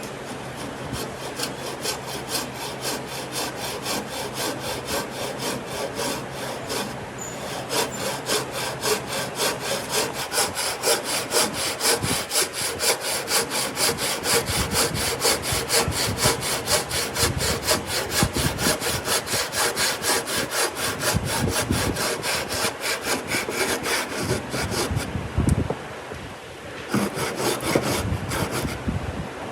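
Wood being cut with a hand saw in quick, steady back-and-forth strokes, pausing briefly near the end and then starting again.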